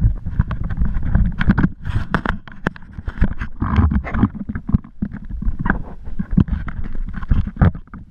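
Wind buffeting the microphone of a head-mounted camera, with many irregular knocks and rustles as diving gear and hose are handled.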